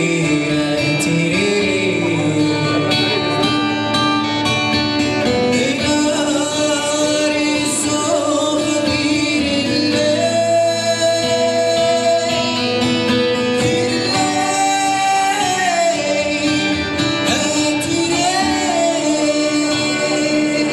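A man singing with his own acoustic guitar accompaniment, performed live into a microphone, his voice holding long notes that waver and slide in pitch.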